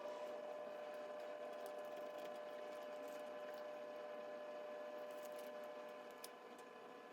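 Faint small clicks and taps of press-on nails being handled and pressed onto fingernails, over a steady faint hum.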